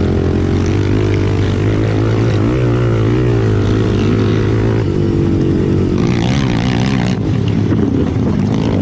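Racing ATV engine running hard, its pitch fairly steady at first and then rising and falling with throttle from about six seconds in.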